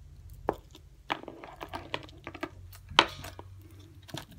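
Handling sounds of a hardcover book and its beaded dangle: beads clicking and light taps and rustles on the cardboard cover. There are a few sharp clicks, the loudest about three seconds in.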